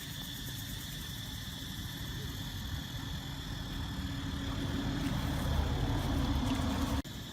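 A motor engine running steadily, growing louder over several seconds, then cutting off abruptly near the end.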